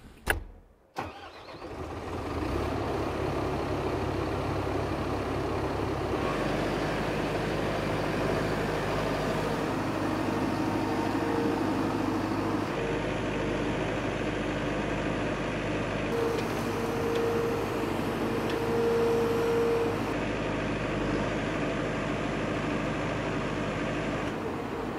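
Komatsu 835 forwarder's cab door shutting with a sharp clack, then its diesel engine starting and running steadily, its note shifting about six seconds in.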